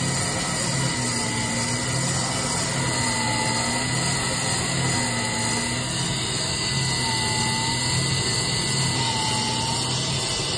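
Bench brake lathe running, turning a brake rotor as its cutting bits resurface the rotor faces: a steady machine hum and hiss, with a faint whine that dips in pitch and comes back about every two seconds.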